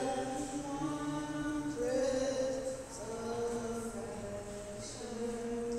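Slow singing in long held notes, each about a second, gliding from one pitch to the next.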